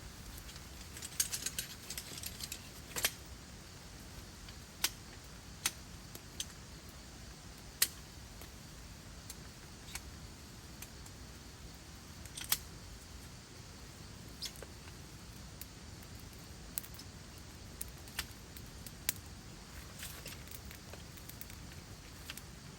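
Scattered sharp clicks and taps at irregular intervals over a faint steady hiss, with a quick cluster of them about a second in.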